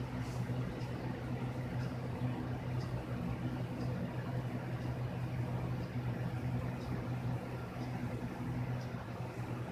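A steady low machine hum, with a faint light tick about once a second.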